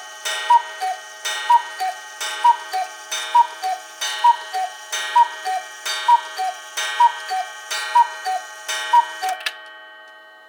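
Cuckoo clock calling the hour: its two-note cuckoo call, high then low, repeated about a dozen times a little under a second apart, stopping near the end.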